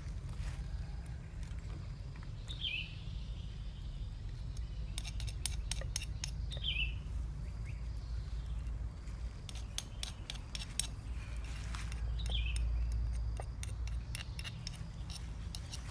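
Light, irregular clinks and taps of a wooden pestle and a spoon against a clay mortar. A bird calls a short falling chirp three times over a steady low rumble.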